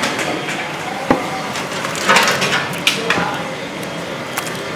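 Scattered sharp knocks and clatter of kitchen work over steady background noise, the loudest cluster about two seconds in.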